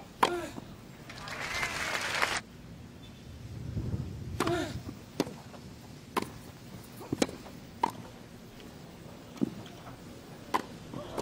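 Tennis ball struck by rackets: a sharp serve hit near the start, then after a short burst of crowd noise that cuts off abruptly, a rally of separate racket hits about a second apart, with a few short voice sounds among them.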